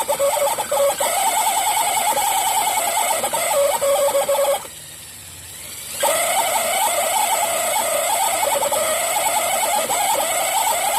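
Kawasaki Mach H2 speedometer spun on a rotation test, giving a wavering high squeal that chatters up and down in pitch: the abnormal noise of a speedometer shaft run dry of oil. The squeal stops for about a second and a half around the middle, then starts again.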